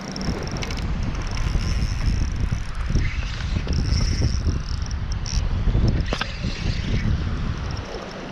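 Wind buffeting the microphone in uneven gusts, a heavy low rumble, with a sharp click about six seconds in.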